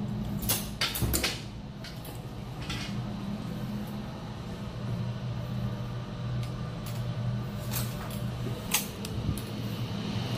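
Steady low hum of ship engine-room machinery, with a few sharp clicks and knocks near the start and again near the end as doors and their handles are worked.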